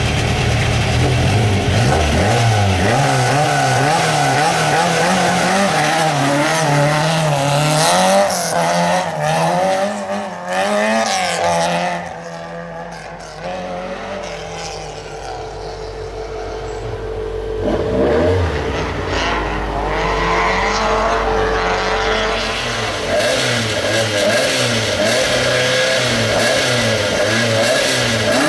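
Rally car engines revving hard and accelerating, pitch rising and falling through the gears. The sound drops away for a few seconds about halfway through as a car runs in the distance, then picks up loud again.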